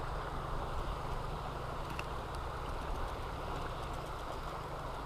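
Steady rush of a shallow river running over rocks, with wind rumbling on the microphone.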